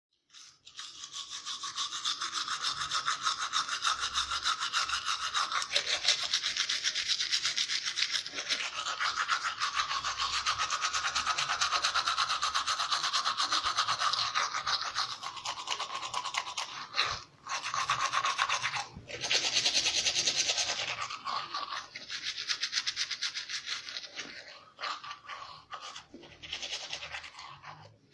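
A toothbrush scrubbing teeth in quick back-and-forth strokes, with a couple of brief pauses past the middle and growing quieter and more broken near the end.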